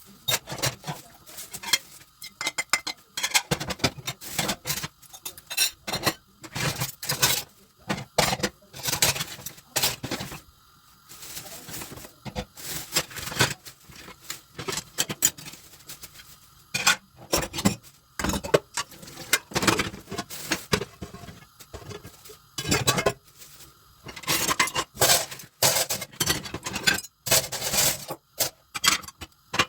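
Hand dishwashing: crockery and cutlery clinking and knocking together at irregular intervals as dishes are handled and scrubbed.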